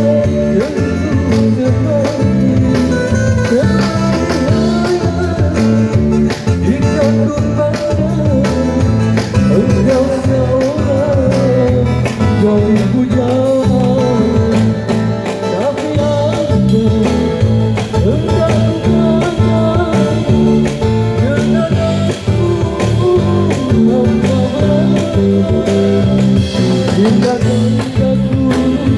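Street buskers performing a song: a singer's voice carrying the melody over amplified guitar accompaniment.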